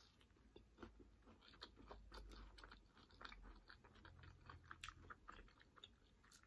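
Faint, close-up chewing of crunchy nachos made on homemade tortilla chips: a run of small, irregular crunches.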